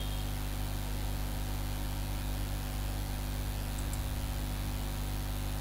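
Steady electrical hum and hiss from the recording's microphone line, with no speech.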